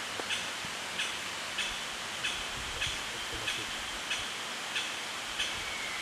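Japanese green woodpecker calling: a steady series of short, evenly spaced notes, about one and a half per second.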